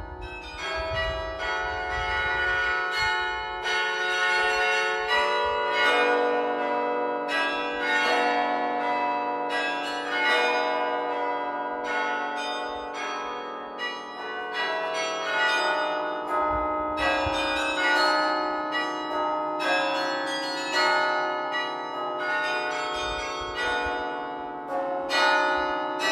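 Carillon bells played from the baton keyboard: a melody of many struck bell notes, each ringing on and overlapping the next.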